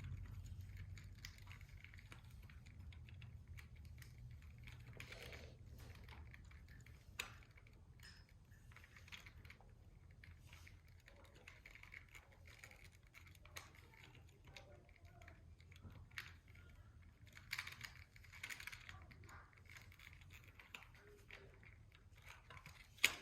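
Faint, scattered small clicks and rubbing as a plastic Tomy/Plarail toy engine is handled while a rubber traction tire is fitted onto its wheel, over a low steady hum.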